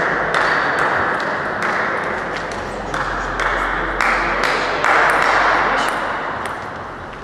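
Table tennis balls clicking sharply and irregularly, about two or three a second, over a steady background hum of the hall; the clicks thin out and the sound fades near the end.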